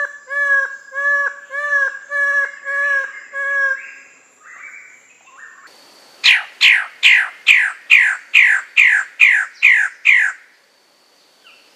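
Birds-of-paradise calling: first a run of about eight short, arched calls, roughly two a second. After a pause, about six seconds in, come ten loud calls, each falling steeply in pitch, about two and a half a second.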